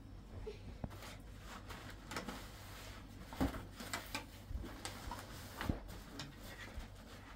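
Scattered light knocks and clicks of small objects being handled, the strongest about halfway and again near the end, over a faint steady low hum.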